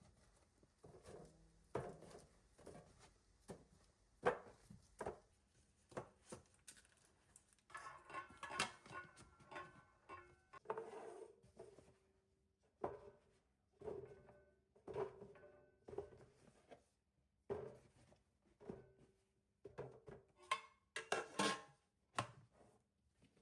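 A string of light knocks and clinks as small hard objects are handled and set down, with a few brief ringing clinks like china or glass.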